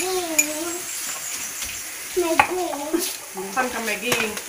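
Dishwashing at a stainless steel sink: a sponge scrubbing plastic dishes, with a few sharp clinks of dishes and containers. A young child's sing-song voice runs over it near the start and again from about halfway.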